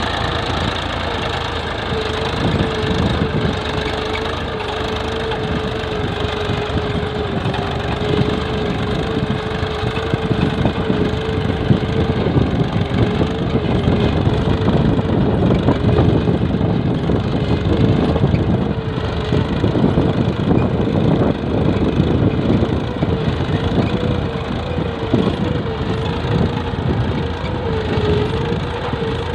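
Massey Ferguson 245 tractor's three-cylinder diesel engine running steadily under load while pulling a cultivator through dry soil, its note wavering slightly.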